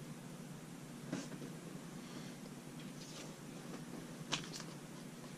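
Hands handling small objects at a desk: a few faint clicks and rustles, the sharpest about four seconds in, over a low steady room hum.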